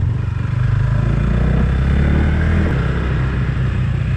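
Motorcycle engine running steadily at low revs, its note shifting as the throttle changes about a second in.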